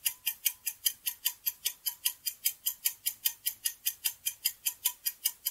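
Countdown-timer clock ticking sound effect: even, quick ticks at about four a second.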